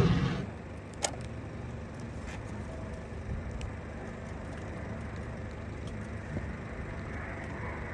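Loud jet aircraft noise cuts off abruptly in the first half second, leaving a steady low rumble. A few sharp clicks of a DSLR shutter sound over it, the clearest about a second in.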